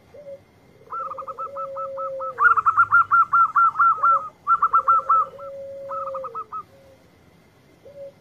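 Zebra doves (perkutut) cooing: rapid runs of short, staccato higher coo notes, loudest around the middle, over longer, lower drawn-out coos that come and go.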